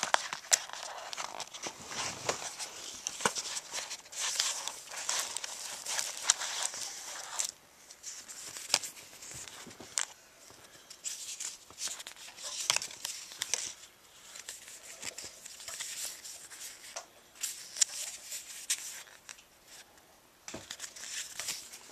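Paper insert and cardboard packaging rustling and crinkling as they are handled, in uneven spells, with scattered light clicks and taps.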